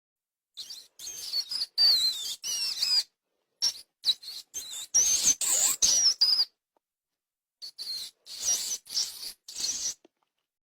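Mouse squeaking sound effect: three runs of rapid, high-pitched squeaks that waver in pitch, each run two to three seconds long, separated by dead silence.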